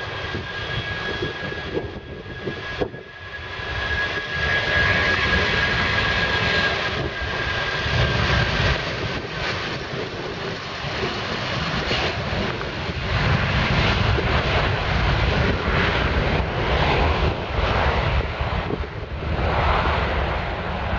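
Boeing 757 jet engines at high power as the airliner rolls along the runway: a steady whine over a loud, rough jet noise that swells a few seconds in and stays loud, the whine fading after about nine seconds.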